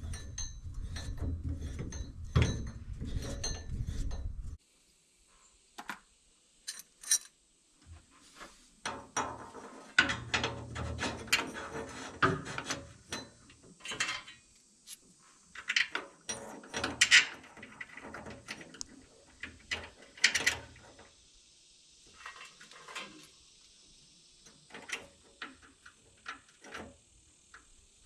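Hand-tool work on metal combine shafts and pulleys: scattered clicks, clinks and knocks of tools against steel, with quiet gaps between them. For the first few seconds a steady low rumble runs under the clicks, then stops abruptly.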